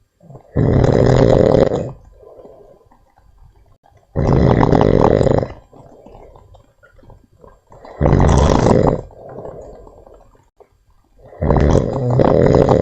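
Monkey snoring in its sleep: four loud snores, each lasting over a second and coming about every three and a half seconds, with softer breaths between them.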